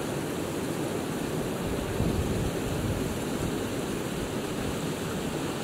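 Steady outdoor rushing noise with a low rumble, fluctuating a little but with no distinct events.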